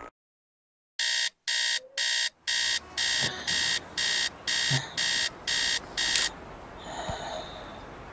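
An electronic alarm beeping in an even run of high-pitched beeps, a little over two a second, which stops after about five seconds.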